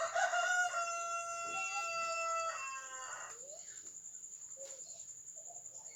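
A rooster crowing once: a long, steady-pitched call of about two and a half seconds that drops away at the end.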